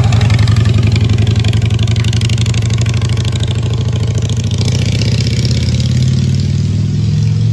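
Cruiser motorcycle engine running with a deep, steady pulsing rumble as the bike rides past and on down the street.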